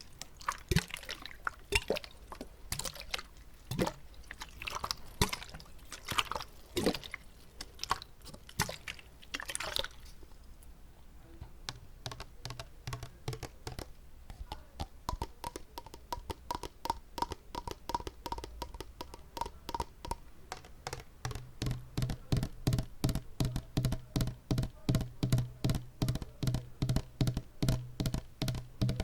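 Water bottle being handled and tapped. For the first ten seconds there are irregular knocks with water moving inside. After a short pause, from about twelve seconds in, comes quick, even tapping with a ringing tone.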